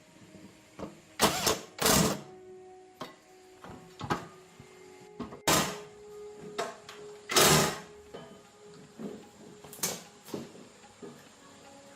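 Irregular knocks and scrapes from hand repair work on a scale's parts, with several louder hits, some leaving a brief ringing tone.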